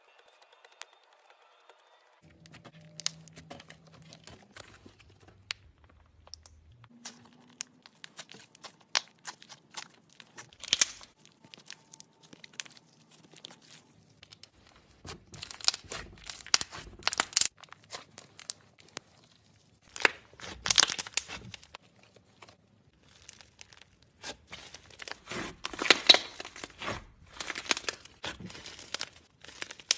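Slime being squeezed and worked by hand close to the microphone, crackling and crinkling in dense bursts that grow busier as it goes, with the loudest crackles about two thirds of the way in and near the end.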